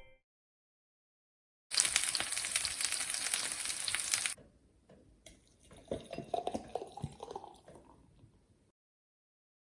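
Food sizzling in a hot frying pan for a few seconds, cutting off abruptly, followed by quieter scattered clinks and knocks of utensils and pan.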